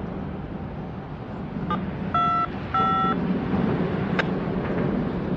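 Two short, steady high beeps a little over half a second apart, over a steady low engine rumble.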